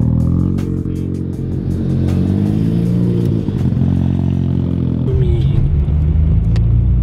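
Sports car engines idling and being revved, the pitch rising and falling. About five seconds in it changes to a car's engine heard from inside the cabin while driving, a heavier low rumble.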